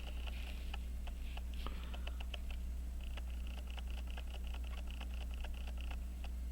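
Fast, even ticking of a running mechanical watch, about five ticks a second and growing more regular a few seconds in, over a steady low electrical hum.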